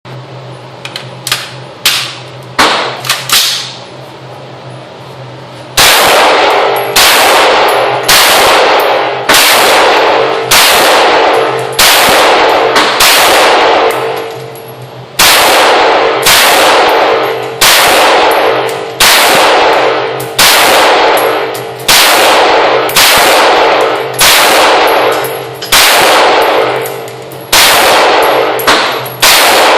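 Knight's Armament SR-15 5.56mm semi-automatic rifle fired in a long steady string, roughly two shots a second, starting about six seconds in. Each shot is sharp and loud with a ringing tail. A few quieter shots come before the string.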